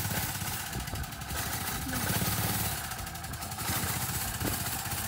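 Engine of a Honda utility vehicle running steadily, with a fast even firing rhythm.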